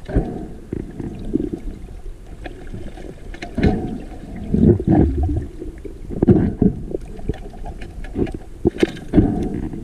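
Muffled underwater sound picked up by a GoPro in its waterproof housing: irregular low rumbles of water moving against the housing as the diver swims, with scattered short clicks.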